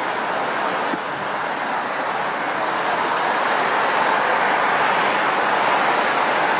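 Four-engined Airbus A380's jet engines running at taxi power, a steady rushing noise that grows louder about three seconds in.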